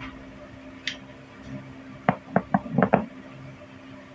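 Light metallic clinks and knocks as small metal pistol parts or tools are handled on a workbench: a faint tick about a second in, then a quick run of five or six sharp knocks near the middle, over a steady low hum.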